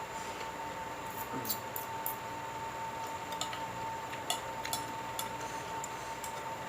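Scattered faint clicks and smacks of someone eating, over a steady high-pitched hum.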